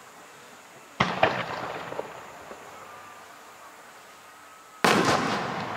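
Aerial firework shells bursting: a sharp bang about a second in, followed by a few smaller cracks, then another loud bang near the end, each fading away in a long rumbling tail.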